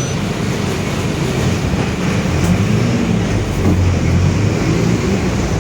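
Mercedes-Benz OF-1721 city bus under way, its engine and driveline running steadily with the differential growling. The pitch rises and falls a couple of times.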